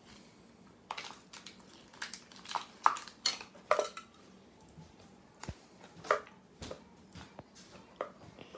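Slime and its small containers being handled on a table: a series of irregular sharp clicks, knocks and clinks, the loudest and most ringing about three seconds in.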